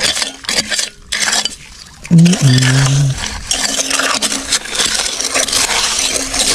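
Gravel and small stones scraping and clinking as hands and a small hand hoe rake through gritty soil, a run of quick irregular scrapes and knocks. A short hum from a voice about two seconds in.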